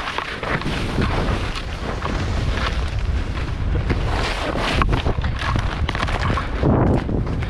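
Wind rushing over an action camera's microphone while skiing fast downhill, a steady low buffeting, with the skis hissing and scraping over the snow in brief louder bursts through the turns.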